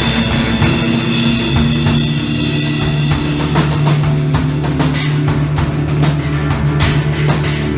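Live rock band playing loud: a drum kit with cymbal strikes and guitar over a held low bass note. The drumming grows busier about halfway through.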